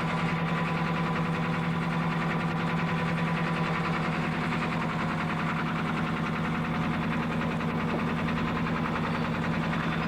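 Fishing boat's engine running steadily with a fast, even throb.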